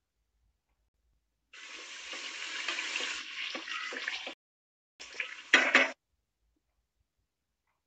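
Chicken curry for biryani sizzling in a metal pot as it is stirred with a wooden spoon, in two stretches about half a second apart; the second ends in a brief louder burst.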